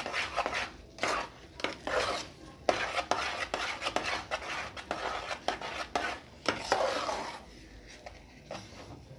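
A spoon stirring thick cornmeal polenta in a metal pot, with irregular scrapes and clinks against the pot's sides and bottom. The stirring quietens near the end.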